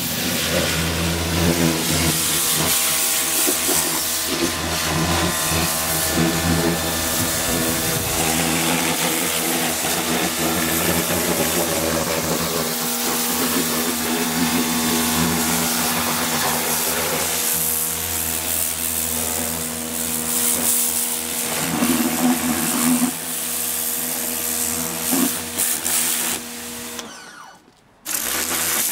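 Pressure washer running: a steady motor hum under the hiss of the high-pressure water jet blasting mud and dirt off car bodywork. The sound drops away for a moment near the end, then resumes.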